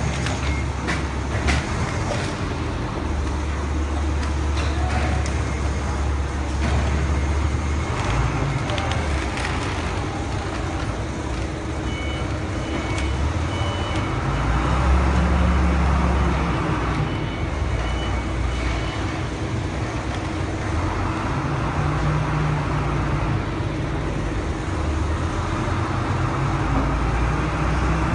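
Forklift engine running under load, revving up several times as it lifts and moves a heavy crate of glass sheets, with a few metallic clicks from the lifting clamp at the start.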